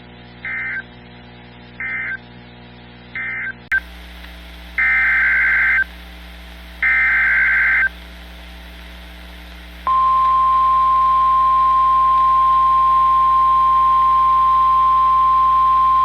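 NOAA Weather Radio Emergency Alert System (SAME) data bursts and alarm. Three short digital bursts about a second apart close the previous warning (the end-of-message code). Then two longer buzzing header bursts come, and about ten seconds in the steady 1050 Hz warning alarm tone starts and holds, heralding a new warning (a tornado warning).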